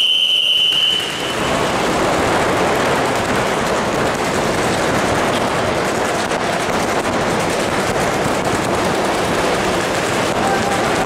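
A start horn sounds for about a second, then many paintball markers open fire at once, a dense continuous rattle of rapid shots from both teams.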